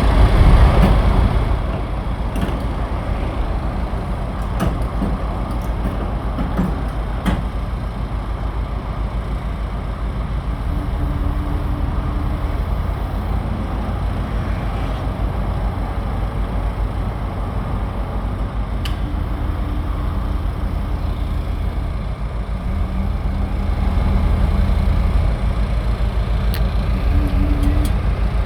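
Heavy engine running steadily with a low, fast pulsing, with a few sharp clicks and knocks.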